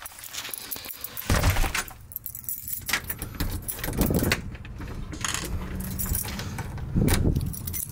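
A ring of keys jangling and clicking against the lock as a key is worked in a keypad deadbolt to lock the door. Three dull thumps come about a second in, near the middle and near the end.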